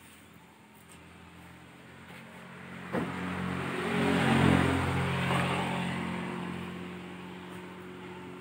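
A motor vehicle's engine passing by on a road, growing louder to a peak about halfway through and then fading away. A single sharp click is heard about three seconds in.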